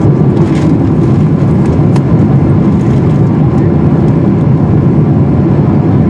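Steady engine and airflow noise inside the cabin of a Boeing 777-300ER on approach, its GE90-115B engines running on the wing. The noise is loud, deep and even.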